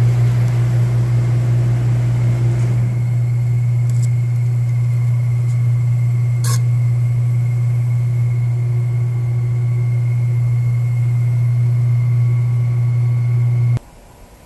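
Manual lathe running with a steady low hum while turning a foam workpiece. A hiss over the top stops about three seconds in, and there is a single click in the middle. The machine cuts off suddenly near the end.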